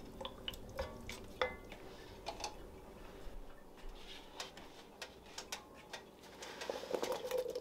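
A wooden spoon stirring broth and vegetables in an enamelled pot, with scattered faint clicks and knocks of the spoon against the pot. Near the end a quick cluster of knocks and scrapes as a wooden cutting board is brought to the pot's rim.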